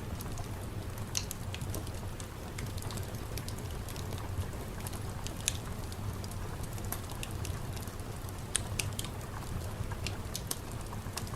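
Ambient soundscape: a steady low rumble with scattered sharp crackles and ticks at irregular intervals, like rain drops or a crackling fire.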